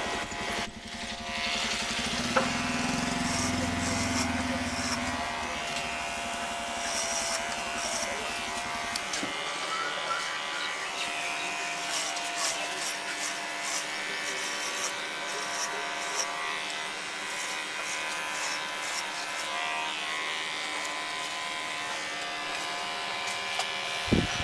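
Cordless electric hair clipper buzzing steadily as it cuts short hair on the back and sides of a man's head. The blades rasp through the hair in repeated strokes.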